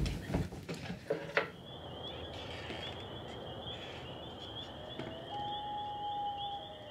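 Night insects chirring in a steady, high, pulsing chorus over faint outdoor hum, with a steady held tone coming in about five seconds in. A few short knocks come in the first second and a half.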